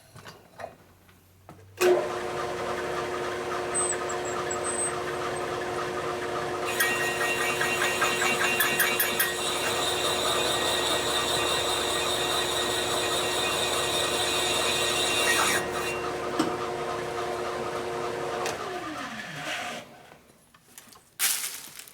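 A machine tool's electric motor starts and runs with a steady hum. From about 7 to 15 seconds in, a brighter metal-cutting noise rides over it as the cutter works the part down to depth. Near the end the motor winds down, falling in pitch, and a short metallic clatter follows.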